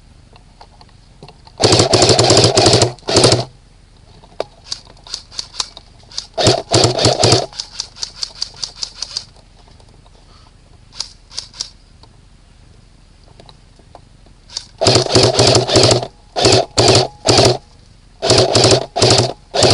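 Airsoft guns firing: several loud bursts of rapid full-auto fire, with strings of separate single shots between them.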